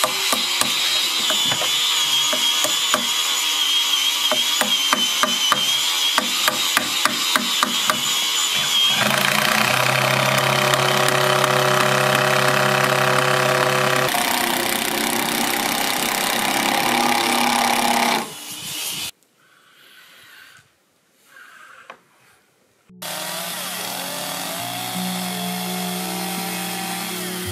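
Quick hammer blows on a wood chisel cutting into timber, several a second for about nine seconds. After that, background music with held and changing notes, which drops nearly to silence for a few seconds in the later part.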